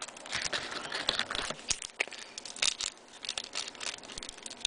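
Crinkling of a trading-card pack wrapper and cards being handled and flipped, a quick irregular run of small crackles and clicks.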